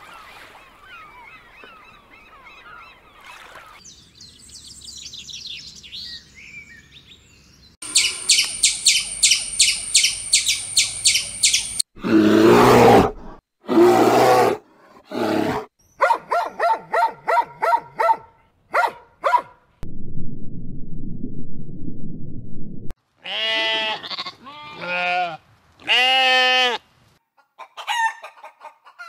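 Animal calls in a string of short clips that cut from one to the next every few seconds. Among them is a fast run of repeated calls, about three to four a second, followed by several loud pitched calls.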